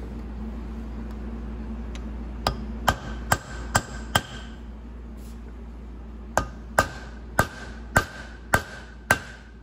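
Hammer blows staking the lube check plug in an E4OD/4R100 transmission pump: a quick run of five metallic taps, a pause of about two seconds, then six more slightly slower taps, each with a short ring.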